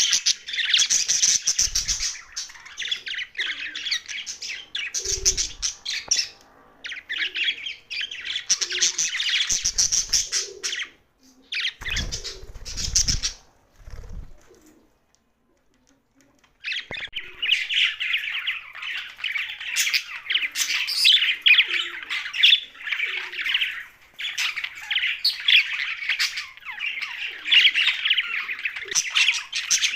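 Young budgerigars chattering and squawking in rapid, scratchy calls, breaking off for about two seconds midway and then chattering steadily again. A few dull low thumps come in the first half.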